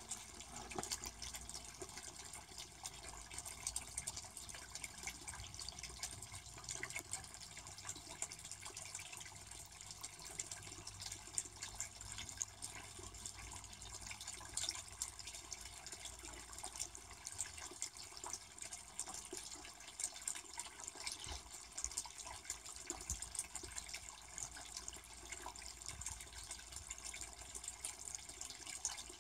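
Running water trickling and splashing steadily into a garden pond.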